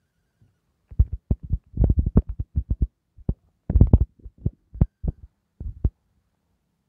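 A quick, irregular run of dull thumps and knocks, starting about a second in and stopping about a second before the end.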